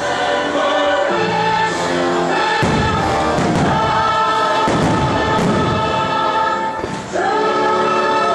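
Fireworks show soundtrack playing loudly: choral singing with orchestra on long held chords. Fireworks shells bang several times over the music through the middle.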